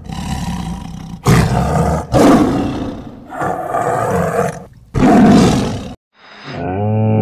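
A tiger roaring and growling in a series of rough calls, loudest about a second, two seconds and five seconds in, cut off abruptly near six seconds. Just after, a camel starts a low groaning bellow that rises in pitch and then holds.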